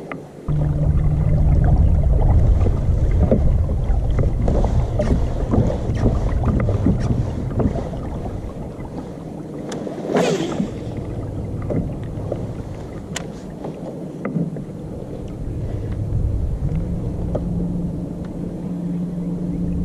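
Fishing kayak moving on the water, heard as a steady low rumble with a faint hum, scattered light knocks, and a brief hissing rush about ten seconds in.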